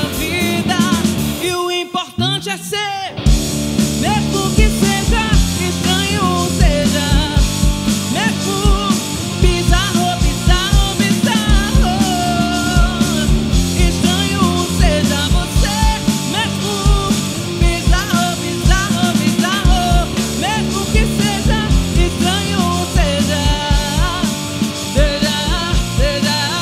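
Live rock band playing: a woman singing lead over electric guitar, electric bass and drum kit, with a short break about two seconds in where the drums and bass drop out before the full band comes back in.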